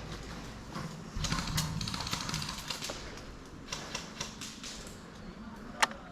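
Airsoft guns firing: a burst of rapid clicks starting about a second in, a few scattered shots after it, and one single sharp crack near the end.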